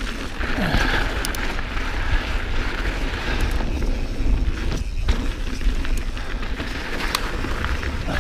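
2019 Santa Cruz Bronson mountain bike rolling fast down a dirt singletrack: tyre noise and rattling from the bike, with a few sharp clicks and a steady low rumble on the microphone.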